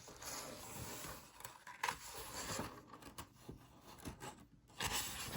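Faint rustling and scraping of paper: a book page being turned, with small clicks and a slightly louder rustle near the end.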